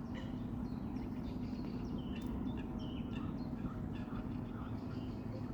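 Small songbirds chirping and singing, many short high notes and trills scattered throughout, over a steady low hum.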